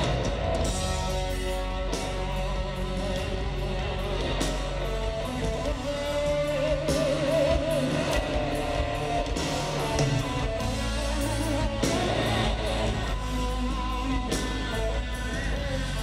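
Rock band playing live at full volume: electric guitar over bass and drums, with a held, wavering guitar note about halfway through.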